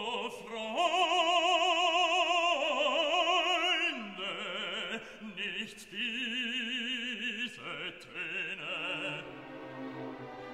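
Operatic singing with orchestral accompaniment: a voice holds long notes with wide vibrato, louder in the first few seconds and softer after.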